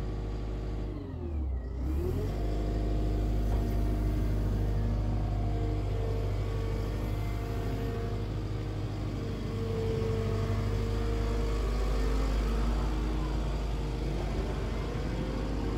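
Atlas 140 W wheel excavator's diesel engine running as the upper structure swings and the boom and bucket are worked. About a second in the engine pitch drops briefly and recovers, then it runs steadily.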